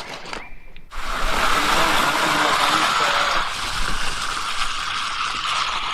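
Wet concrete at a 5-inch slump sloshing and sliding as it is poured and worked into the walkway forms. It makes a loud, steady rushing noise that starts abruptly about a second in.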